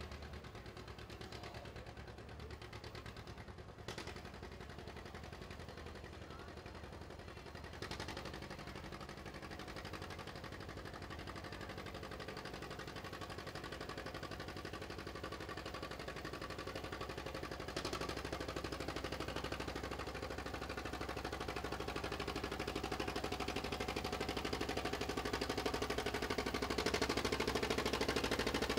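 Farm tractor engine working hard under load, pulling the weight sled, its rapid firing pulses running steadily and growing gradually louder, with small jumps in level about 8 seconds and about 18 seconds in.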